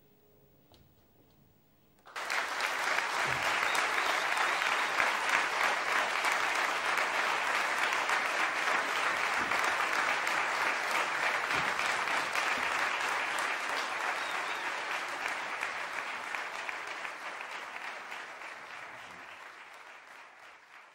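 Live audience applause breaking out suddenly about two seconds in, after the faint last note of the piece has died away, then holding steady and fading out near the end.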